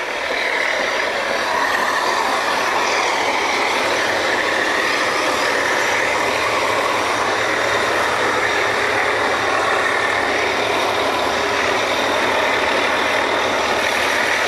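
Drilling rig machinery running steadily: a loud, even engine drone with a hiss above it and no breaks.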